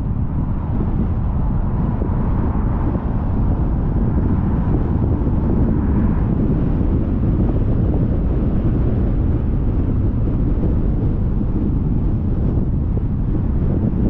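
Steady road noise and wind rush from a car driving along, with wind buffeting the microphone.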